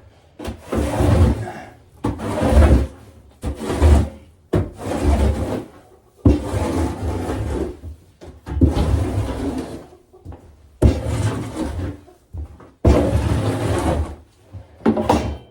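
Repeated scraping strokes of a hand tool dragging old bedding across the chicken coop floor, about eight strokes, each lasting around a second with short pauses between.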